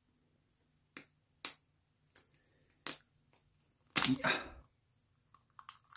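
Cooked crab shell being cracked and broken apart by hand: several sharp single snaps, then a louder, longer crunch about four seconds in.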